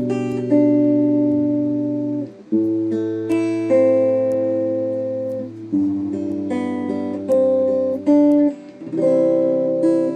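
Instrumental music: an acoustic guitar strumming sustained chords over a low bass note, a new chord struck every second or two, with no singing.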